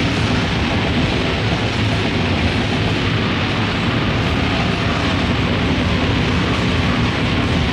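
Lo-fi grindcore demo recording: a loud, steady, dense wash of distorted noise with no breaks or pauses.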